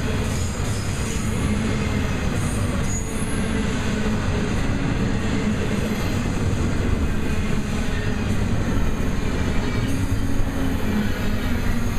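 Double-stack intermodal well cars rolling past: a steady, loud rumble of steel wheels on rail. Several short, faint high wheel squeals come in the first few seconds.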